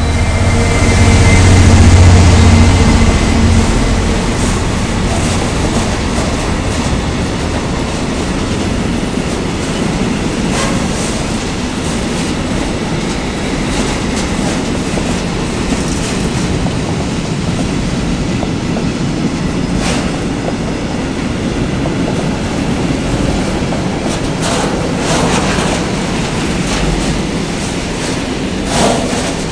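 A Class 66 diesel locomotive's two-stroke V12 engine runs loud as it passes close, fading after the first few seconds. Then a long train of gas tank wagons rolls past with a steady rumble of wheels on rail and occasional sharp wheel clacks.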